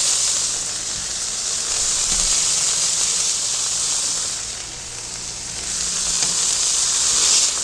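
Smash burger patties sizzling steadily on a hot carbon steel plancha. The sizzle eases briefly a little past the middle, then picks up again.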